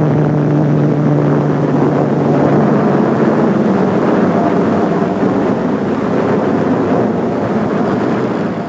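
Douglas A-26 Invader's twin Pratt & Whitney R-2800 radial engines running at high power on a takeoff run: a loud, steady propeller drone whose low hum turns into a rougher roar, easing off near the end.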